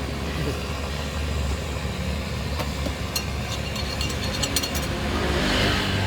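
Steady low hum of motor traffic on the street, with a run of light clicks and taps about three to five seconds in.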